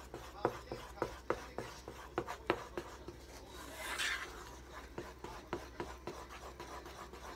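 A spatula stirring pancake batter in a metal saucepan, tapping and scraping against the pan's sides at about three strokes a second, the taps growing fainter in the second half. A brief hiss comes about four seconds in.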